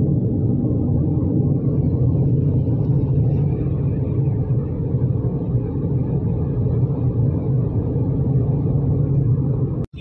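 Steady low road and engine rumble inside a Tata car's cabin cruising at about 74 km/h. It cuts out for an instant just before the end.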